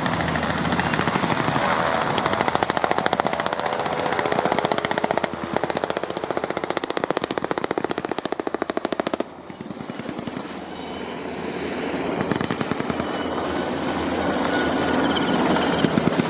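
UH-60 Black Hawk helicopters' rotors beating in a fast, steady chop over the whine of their turbine engines. The sound drops off sharply a little past halfway, then builds again toward the end.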